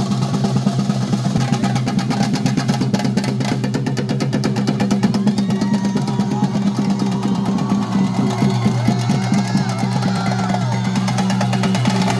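Chenda drums played in a fast, continuous roll of theyyam accompaniment, over a steady low drone.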